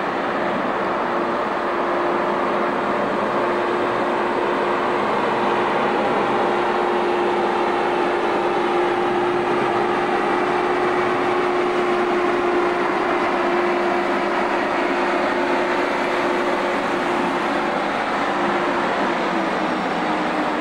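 Diesel engine of an articulated low-loader lorry running steadily as it moves slowly along with a railcar body on its trailer. Its engine note holds one pitch and drops lower near the end.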